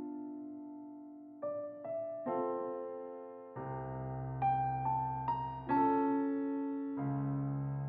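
Background music on a piano-sounding keyboard: notes and chords struck about every second, each left to ring and fade.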